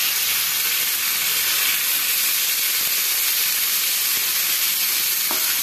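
Sliced bitter gourd (karela) sizzling steadily in hot oil on a tava, just after the slices were laid in the tempered oil.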